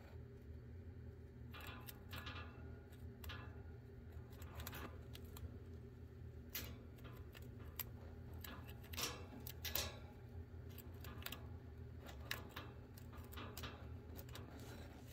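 A chinchilla gnawing on a hanging wooden chew toy: irregular crisp crunches and nibbling clicks of teeth on wood, coming in small clusters, the sharpest bites about nine and ten seconds in. A faint steady low hum lies underneath.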